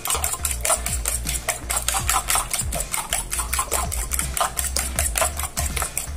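Eggs being beaten by hand in a plastic bowl: a utensil clicks rapidly and steadily against the bowl, about five or six strokes a second.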